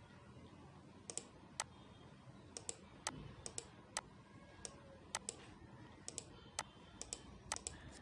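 Computer mouse button clicking: faint, sharp clicks about two a second, several of them in quick pairs, over a low background hiss.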